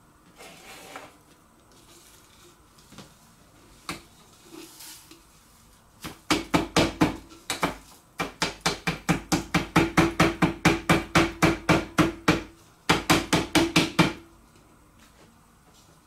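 Clear plastic dust case of a Makita cyclone vacuum attachment rapped rapidly against a metal tray, about four to five knocks a second, with a short break near the end, to knock loose confetti that clings to it by static. A few light handling clicks come before the knocking starts.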